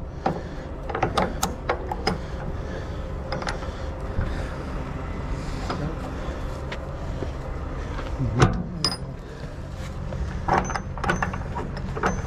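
A heavy truck engine running steadily during a rollover recovery, with scattered clinks and knocks of chain and metal and a louder knock about eight seconds in.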